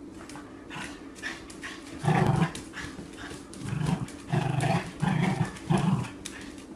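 Small dog "talking": a string of about five short, pitched yowling vocal sounds starting about two seconds in, its attempt to answer its owner's "who do you love?" prompt.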